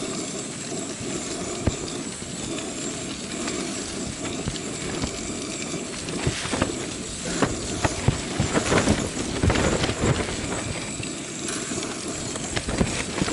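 Steady rushing hiss of a camping stove burner, with a few clinks and knocks of metal trays being handled at the oven, mostly around the middle.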